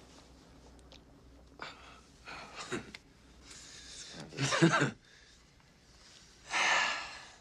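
Short breathy vocal sounds: gasps and exhales. The loudest, with some voice in it, comes about four and a half seconds in, and a longer breathy sigh follows near the end.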